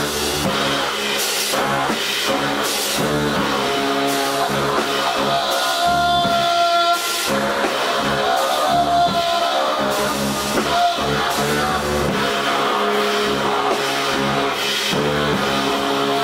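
Live doom-jazz trio: baritone saxophone and trombone, both played through effects, sounding heavy held lines over a drum kit with cymbal hits. About six seconds in the drums drop out for roughly a second, leaving the horns' held notes, then come back in.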